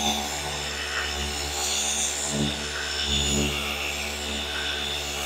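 Flex FX3331 24V cordless gear-driven orbital polisher running steadily, its pad working polish across a car's painted hood in a section pass. A continuous motor whir whose tone swells and fades about once a second.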